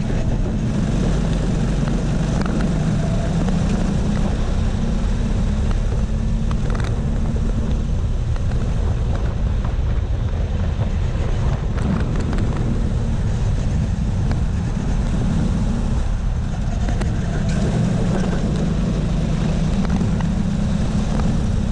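Racing kart engine running at speed, heard from an onboard camera on the kart, loud and continuous with heavy low rumble; it is fuller near the start and again near the end.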